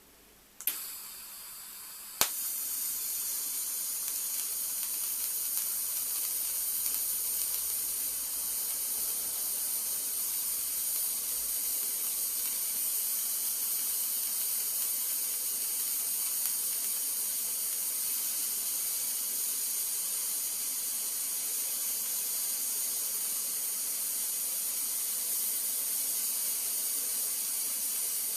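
TIG welding arc on stainless steel fittings. About half a second in there is a click and a quieter hiss, then a sharp click about two seconds in as the arc strikes, followed by a steady high hiss.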